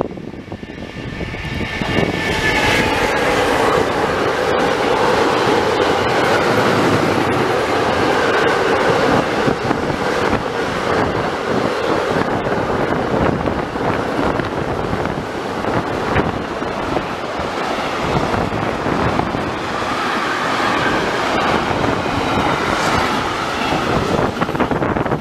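Freight train passing close at speed: the wagons, car transporters and then tank-container wagons, rumble steadily over the rails. The noise builds over the first two seconds and then stays loud.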